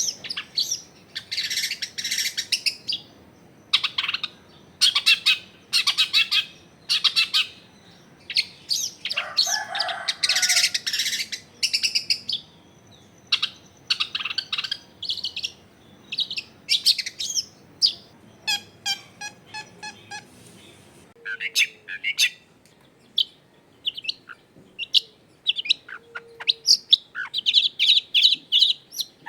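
Long-tailed shrike (cendet) singing: a busy run of sharp high chirps and calls with louder harsh stretches, and a quick, evenly pulsed rattling trill about two-thirds of the way through.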